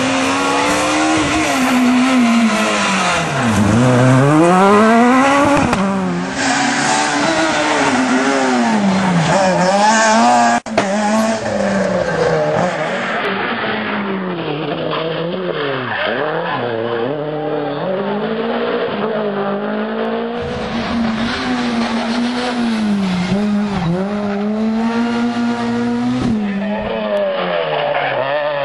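Rally cars at full attack on a special stage, in short clips cut together. The engines rev hard and fall away again and again through gear changes and braking, with tyres skidding on the loose surface. Near the end a Peugeot 207 S2000's four-cylinder engine is heard revving through a slide.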